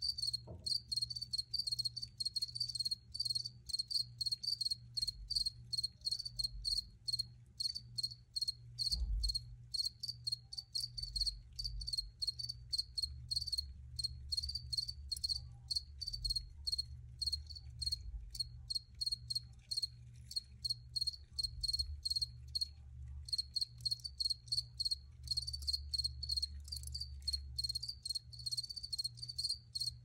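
Crickets chirping steadily, a high, even chirp repeating about three times a second, with a short break about two-thirds of the way through. A low steady hum sits underneath.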